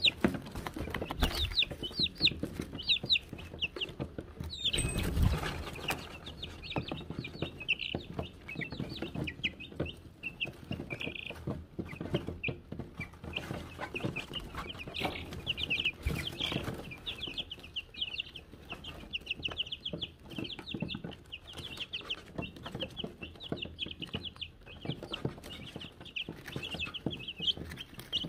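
Wyandotte chicks peeping continuously, a dense run of short high cheeps, with scattered small taps and rustles and one louder thump about five seconds in.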